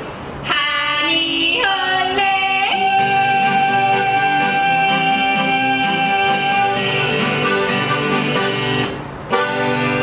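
Female duet yodeling to a polka accompaniment of acoustic guitar and accordion. The voices leap between quick broken notes, then hold one long high note over the oom-pah beat. The song closes with strummed chords, a short break about nine seconds in and a final chord.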